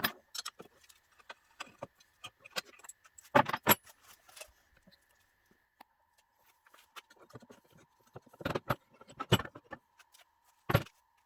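Small metal parts of a model locomotive's traction motor clinking and clicking as they are handled and the bearing cover is pulled off, in scattered sharp knocks with a few louder ones.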